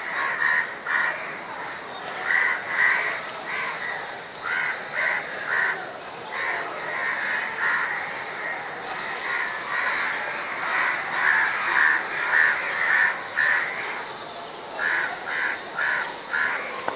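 Crows cawing repeatedly, the calls coming in runs of three or four.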